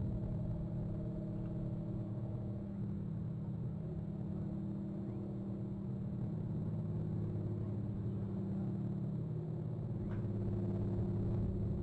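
A distant engine running steadily: a low drone with a few steady pitched tones that shift slightly in pitch now and then.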